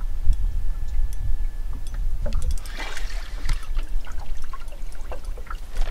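Water splashing and sloshing at a small boat, loudest about three seconds in, with scattered sharp clicks over a steady low rumble.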